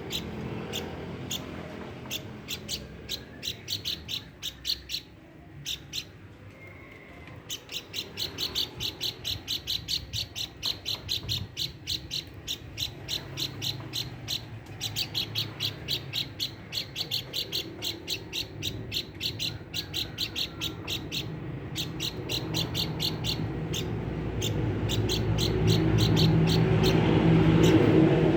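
Pelanduk bukit, a babbler, calling in long rapid runs of short chirps, about four a second, broken by brief pauses. A low background rumble grows louder near the end.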